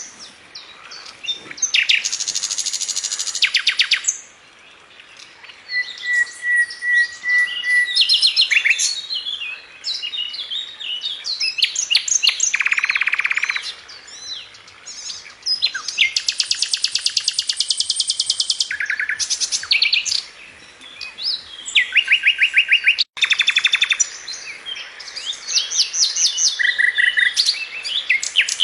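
Songbirds singing loudly and continuously: fast rattling trills, quick chirps and whistled notes, the phrases often overlapping, with one held whistle a few seconds in.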